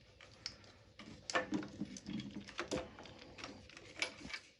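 Scattered light clicks and knocks of tools and parts being handled, at irregular times.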